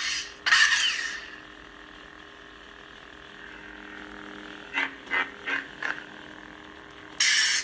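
A Proffie-driven custom lightsaber's sound font playing through its 31 mm speaker: a steady electric hum, with loud swelling effect sounds near the start and again near the end, and four quick short sounds about five seconds in.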